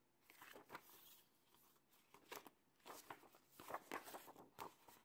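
Faint rustling and light clicks of a paper card being handled.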